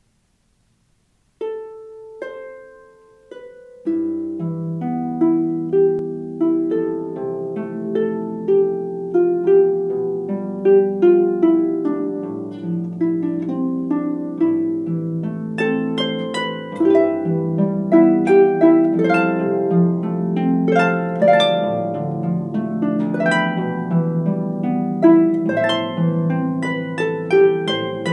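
Background music: a plucked-string instrumental piece with a steady run of notes. It starts with a few notes about a second and a half in and fills out into a fuller melody from about four seconds.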